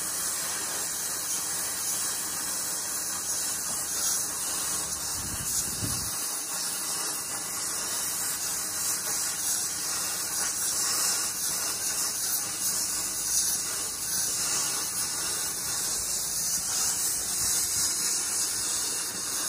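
Steady hiss of a gas welding torch flame.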